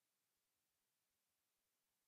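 Near silence: a silent sound track with only a very faint, even hiss.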